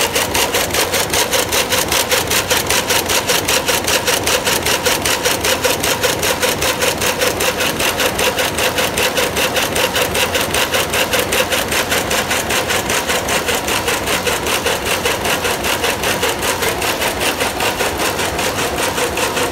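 Electronic jacquard rapier loom running at speed, a fast, even mechanical clatter of several beats a second, each beat one pick of the weft, over a steady machine hum.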